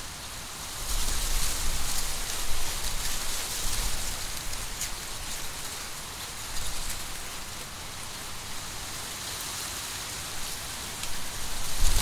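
Wind blowing through a field of dry, mature corn, the papery leaves and stalks rustling with a fine crackling hiss. Gusts swell about a second in and again near the end, bringing a low rumble with them.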